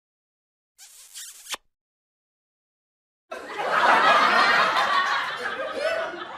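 Dead silence, then a brief hiss about a second in that ends in a sharp click, then loud laughter from about halfway on, a sound-effect laugh added in editing.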